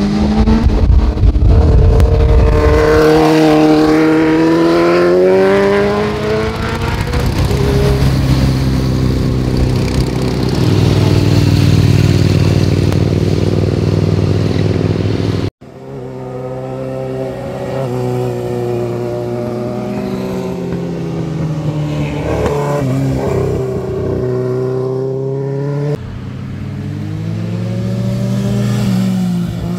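Motorcycles riding through a hairpin bend one after another, their engines rising and falling in pitch as they slow into the curve and accelerate out. The sound cuts off sharply about halfway through and another pass begins.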